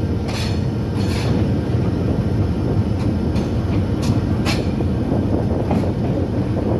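Train running along the track with a steady low rumble, broken by a few short sharp clanks.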